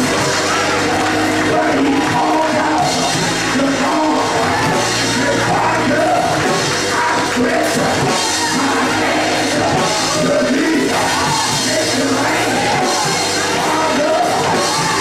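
Live gospel music in a church: a man singing and shouting into a handheld microphone over instrumental backing with steady low bass notes, while the congregation claps along.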